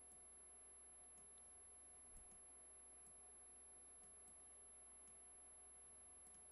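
Near silence: a faint steady electrical hum with scattered faint clicks of a computer mouse.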